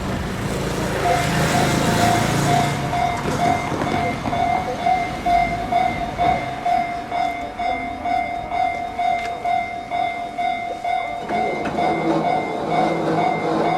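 Railway level-crossing warning bell ringing, a repeated electronic ding about twice a second. A rush of passing noise comes about a second in, and a lower rumble builds near the end.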